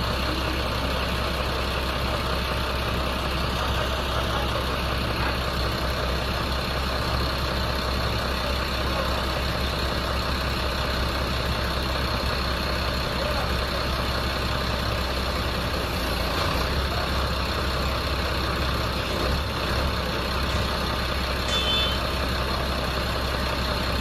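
Heavy diesel engine of a wheel loader fitted with a tyre handler, idling steadily without change in pitch or level.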